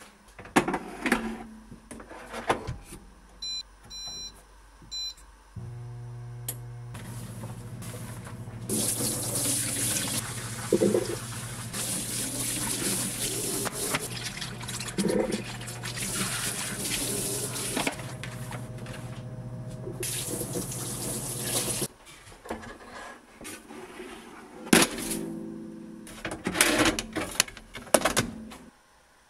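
A few short electronic beeps, then a low steady hum and a loud even rush like running water for about thirteen seconds, stopping together. Clattering of kitchen things comes before and after.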